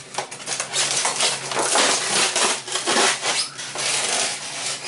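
Hands rummaging in a polystyrene packing tray and pulling out hard plastic food processor parts: dense rubbing and scraping of polystyrene with a run of small plastic clicks and knocks.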